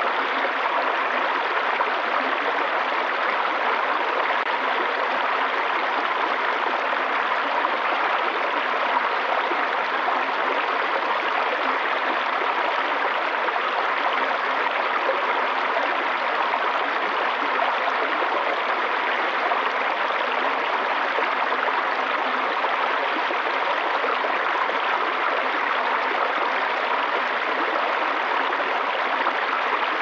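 Small forest stream running over rocks in little cascades: a steady, even rush of water.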